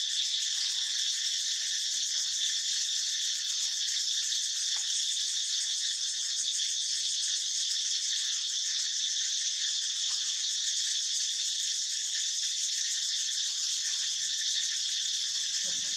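Steady, high-pitched chorus of insects, an unbroken shrill drone that holds level throughout.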